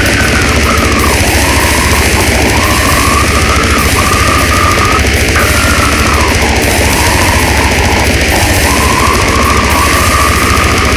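Brutal death metal recording playing: a loud, dense wall of heavily distorted guitars over fast drumming, with a wavering high guitar line riding on top.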